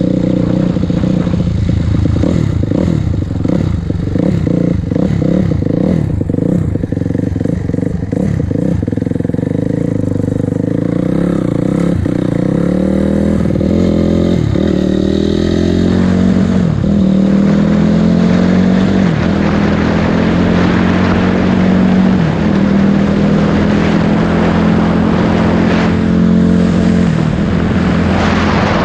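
2006 Honda CRF250R's single-cylinder four-stroke engine running while being ridden. The pitch drops and climbs back several times around the middle, as with gear changes or throttle changes. In the second half it holds a steadier pitch under a rising rush of wind noise.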